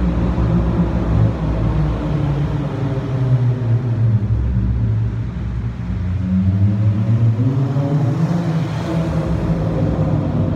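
Exhaust of a Dodge Charger SXT V6 fitted with a Jones turbine muffler, rumbling at low revs and echoing off the concrete of a parking garage. The pitch sags about four seconds in, then rises for a couple of seconds as the car accelerates, and settles again.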